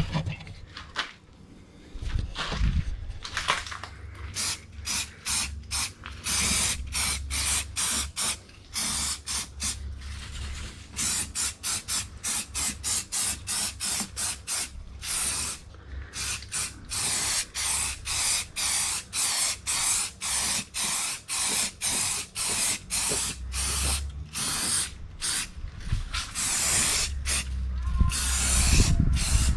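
Aerosol can of rust converter spraying in dozens of short hissing bursts, about two a second, as it is spotted onto surface rust on bare steel inner fender panels.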